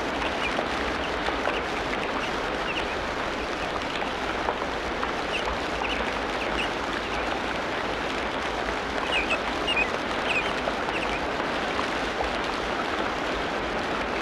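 Tropical rainforest ambience: a steady, dense hiss like rain or running water, with short high bird chirps scattered through it, most of them bunched together about nine to eleven seconds in.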